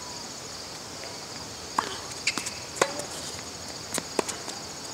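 Tennis rally on a hard court: a handful of sharp pops from the ball being struck by rackets and bouncing, starting about two seconds in, over a steady high buzz of insects.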